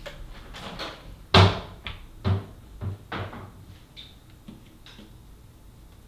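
Plastic Rubik's-type cubes being handled on a table: several hard knocks and clacks, the loudest about a second and a half in, followed by a few lighter clicks.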